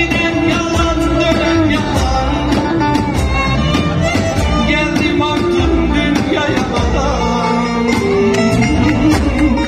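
Live Turkish folk music played through a PA: a male singer over bağlama, violin, electronic keyboard and a davul drum keeping a steady beat.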